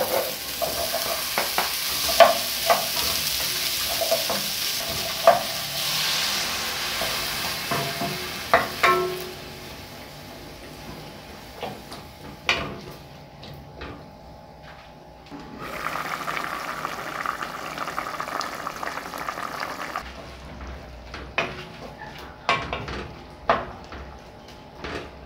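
Chopped vegetables hitting hot butter in an aluminium pot and sizzling, then being stirred with a wooden spoon that knocks against the pot's sides. The sizzle is loud at first and dies down about nine seconds in, leaving scattered spoon knocks and a fainter sizzle.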